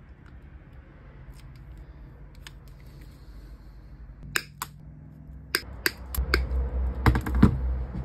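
Sharp metallic clicks of pliers and small steel junkbot parts being handled: a pair about four seconds in, four more spaced about a quarter second apart, then a quick rattle of clicks near the end, over a low steady hum.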